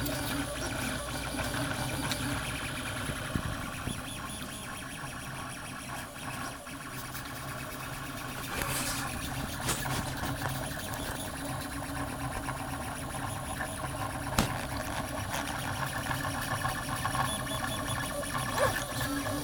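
3D printer running a print: its stepper motors whir and buzz in shifting steady tones as the print head and bed move, with small ticks here and there.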